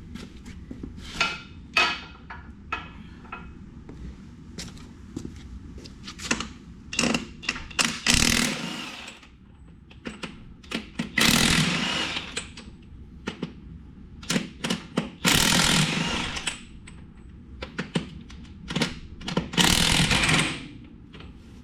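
Impact wrench hammering on the tractor's rear-wheel lug nuts in several short bursts of about a second each, with metallic clicks of socket and tool handling between them.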